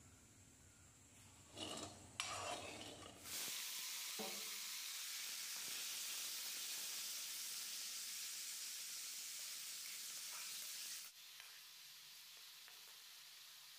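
Raw chicken pieces going into hot oil in an iron kadai with a few short clatters, then a steady sizzle while a metal spatula stirs them. The sizzle drops sharply about eleven seconds in to a quieter hiss.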